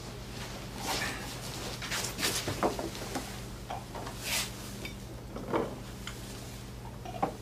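Dishes, small bowls and sake flasks being set down and moved on a wooden table: a scattering of light clinks and knocks over a faint steady hum.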